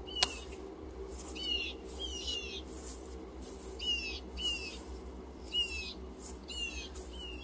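Birds calling: short, high chirps that slide downward in pitch, one or two a second, over a steady low hum.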